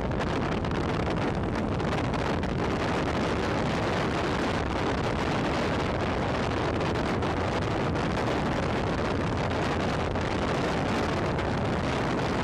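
Wind buffeting the microphone of a camera held outside a moving car's window: a steady rushing noise with the car's road noise beneath. It cuts off sharply at the very end.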